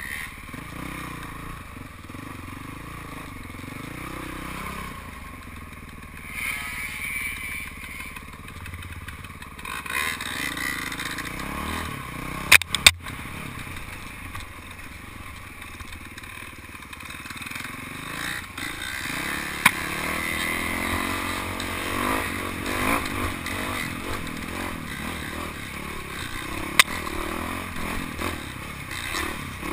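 Dirt bike engine ridden hard, its revs rising and falling over and over. A few sharp knocks cut through it.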